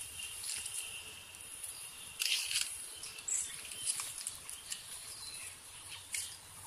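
Outdoor ambience: insects keeping up a steady high-pitched buzz, broken by short crackling sounds, the loudest a little after two seconds in.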